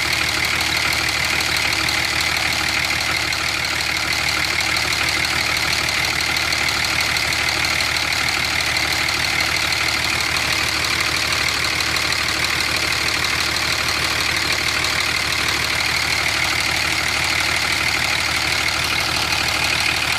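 Cummins diesel engine idling steadily with its valve cover off, the rockers and injectors clattering in the open, on its first run after an injector replacement.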